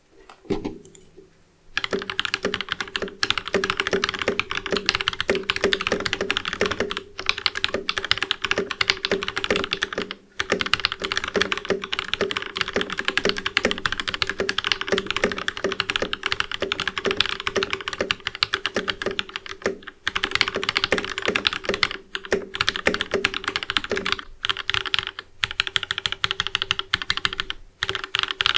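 Fast typing on a mechanical keyboard fitted with Jwick Red linear switches: a dense, continuous run of clacky, high-pitched keystrokes with a few brief pauses.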